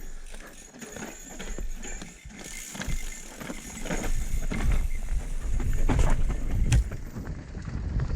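Mountain bike riding down a dirt trail: tyres rolling over rough ground, with repeated knocks and rattles from the bike and wind rumbling on the microphone, growing louder as speed builds.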